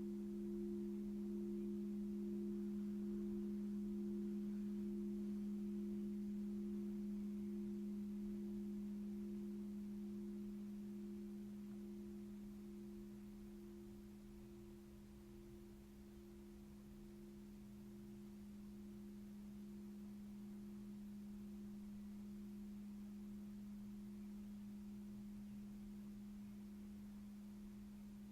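Sound-healing instruments ringing: two steady, pure tones, one low and one a little higher, held throughout, fading somewhat about halfway and then holding.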